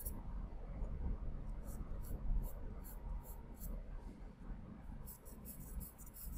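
Sharply pointed charcoal pencil scratching across layout paper in short strokes. The strokes come quicker and closer together about five seconds in.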